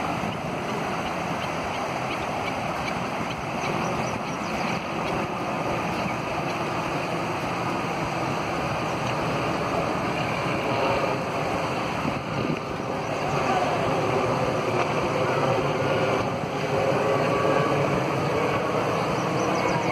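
Shallow river water rushing steadily over rocks through small rapids, a continuous even noise.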